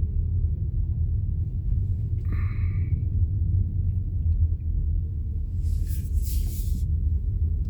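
Steady low rumble of a car's engine and road noise heard inside the cabin as it pulls in to park, with a brief hiss about six seconds in.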